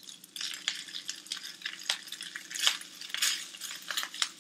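Cooked rice tipped from a bowl into hot oil in a saute pan and spread out with a silicone spatula. Irregular crackles from the oil, with scrapes and clinks of the bowl and spatula against the pan.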